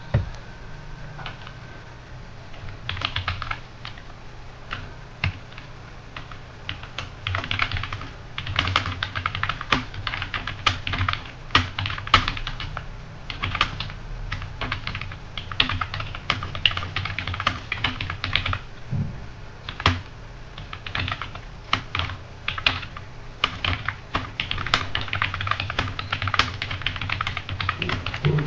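Computer keyboard being typed on quickly and continuously, dense irregular key clicks in long runs during a timed typing test, starting about two seconds in.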